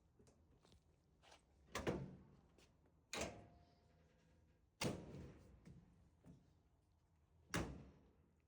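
Four sharp knocks or thunks, each dying away quickly, at uneven gaps of one to three seconds.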